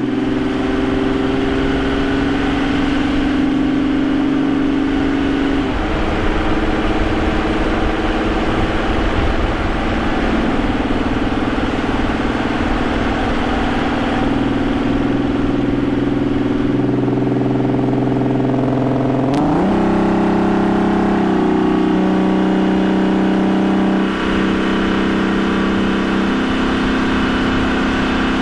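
Vauxhall Omega's 3.2-litre 24-valve V6 running under way, picked up in the engine bay near its K&N air filter, with tyre and road noise beneath. About 19 seconds in the engine note jumps up sharply, then falls back in a few steps and settles.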